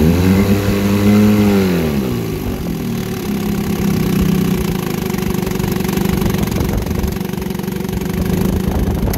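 1963 Evinrude Sportwin 10 hp two-cylinder two-stroke outboard running in a test barrel, its propeller churning the water. It revs up briefly at the start and falls back over about two seconds, then runs steadily.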